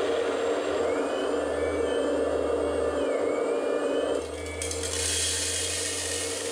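Hydraulic pump of a 1/14-scale Kabolite 970 RC excavator whining steadily while the boom swings, with higher tones sliding up and down as the controls move. About two-thirds of the way through, the whine drops and a hiss of gravel pouring from the bucket into a plastic dump-truck bed sets in.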